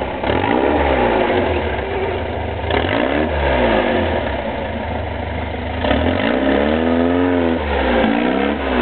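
Off-road buggy engine revving up and dropping back again and again under load as the buggy works over a steep dirt bank.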